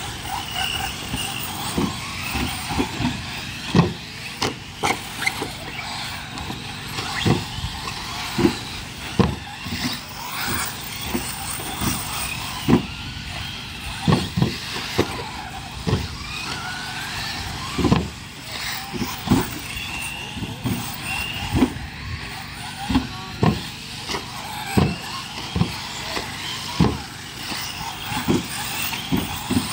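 RC off-road cars racing on a dirt track: their motors rise and fall in pitch as the cars pass, with irregular thumps throughout.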